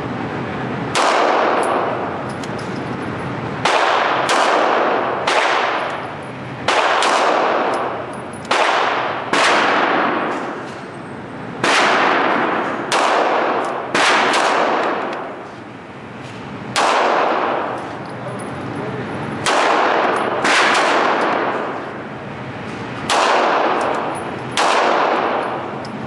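Springfield XDM 9mm pistol firing a slow string of single shots, some fifteen of them at an uneven pace a second or two apart, each shot echoing on in an indoor range.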